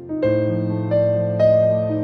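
Soft background piano music, a few notes struck one after another and left to ring.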